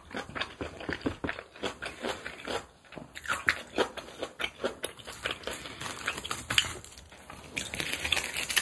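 Close-miked chewing of a mouthful of spicy kimchi bibimbap: many quick, irregular wet mouth clicks. A short rustle comes near the end.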